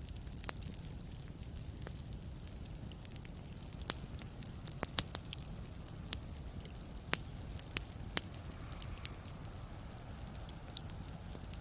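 Fireplace fire crackling: irregular sharp pops, several a few seconds apart, over a low steady rumble.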